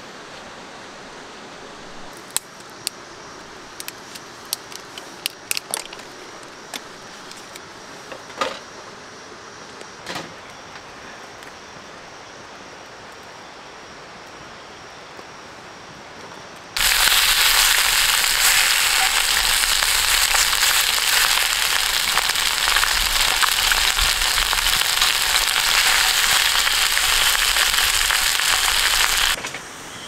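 Steady rush of stream water with a few scattered clicks, then, after a cut, loud dense crackling of small wood fires burning in camp grills, which stops abruptly near the end.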